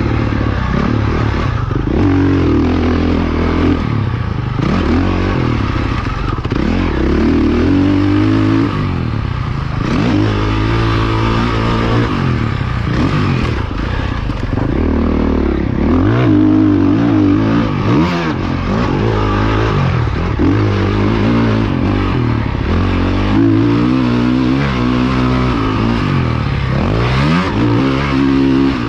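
Motocross dirt bike engine, heard from on the bike while it is ridden hard on a dirt track, revving up and backing off over and over. The pitch climbs and drops every two to three seconds as the rider accelerates and rolls off the throttle for jumps and turns.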